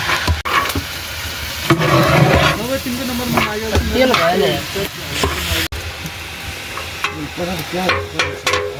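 Food frying in a pan and being stirred, a steady sizzle with scraping clicks from the stirring.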